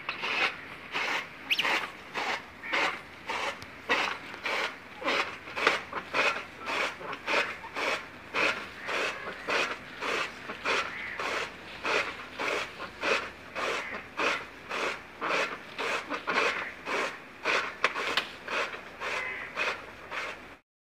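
Hand-cranked toka chaff cutter chopping green sorghum (jowar) fodder: the blade slices through the stalks with a crisp chop about twice a second, in a steady rhythm.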